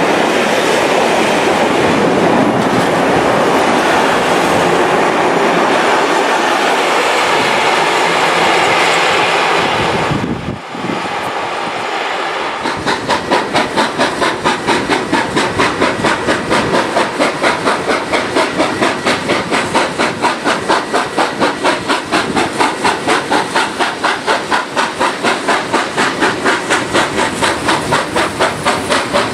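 Steam locomotive 3642, a NSW C36 class 4-6-0, on the move: for about ten seconds a steady rushing noise of the train running, then after a brief drop the engine's exhaust beats set in as an even chuffing of about two and a half beats a second.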